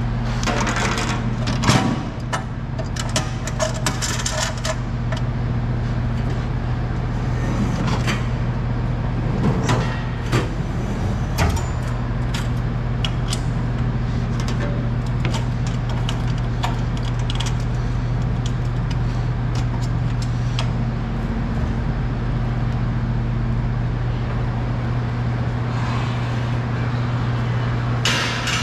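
Machinery running with a steady low hum, with scattered metallic clanks and knocks: a cluster about a second in, more around eight to twelve seconds in, and again near the end.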